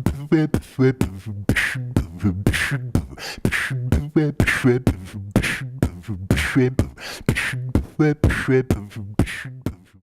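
Beatboxing: a quick, regular mouth-made beat of sharp percussive hits over a low bass sound, in a pattern that repeats about every two seconds and cuts off abruptly at the end.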